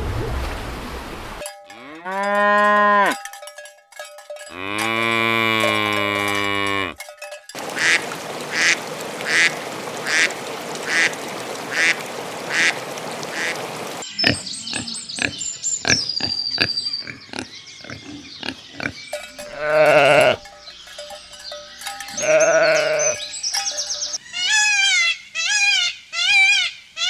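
Farm animals calling in a string of separate clips: two long, drawn-out pitched calls, then a run of about ten evenly spaced rings, then assorted short calls and knocks, and a quick series of bleats near the end.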